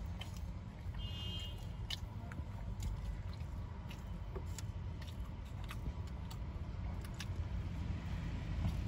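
Steady low rumble of a car's cabin, with scattered small clicks and rustles from hands and paper wrapping as people eat chole kulcha.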